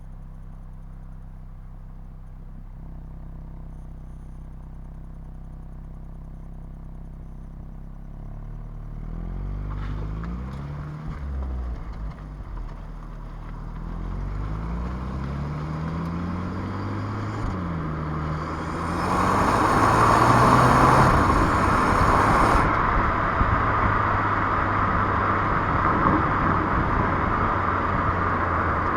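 Renault Clio 1.3 TCe 130's four-cylinder turbo petrol engine in stock form, idling steadily at first, then rising and falling in engine speed several times from about nine seconds in. Near twenty seconds in it grows louder, with a rushing noise that eases after a couple of seconds, and then runs on steadily.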